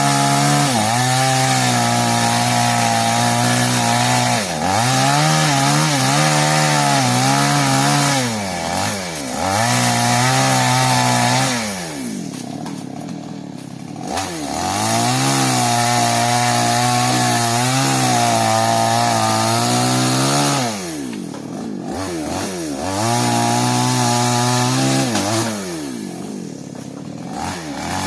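New West chainsaw running at full throttle in long pulls of several seconds, cutting sengon wood, with brief throttle-offs and a few short stretches back at idle.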